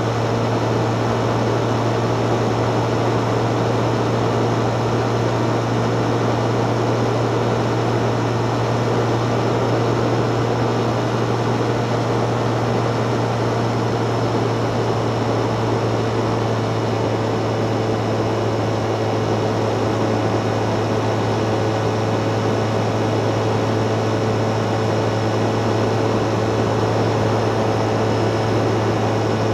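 Steady rushing noise with a constant low hum underneath: wind and riding noise picked up by a mountain-bike action camera.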